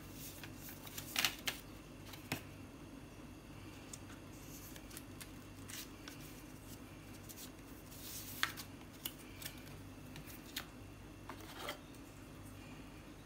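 Paper inserts, stickers and a cardboard box tray being handled, with scattered short rustles and light taps over a faint steady hum.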